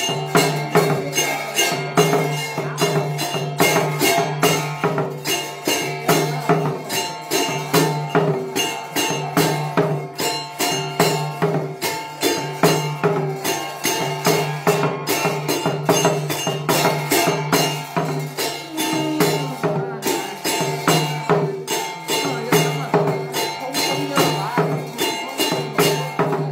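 A Tày ritual master chanting in a low male voice over a quick, steady, rhythmic jingling rattle, the music of a misfortune-warding (giải hạn) rite.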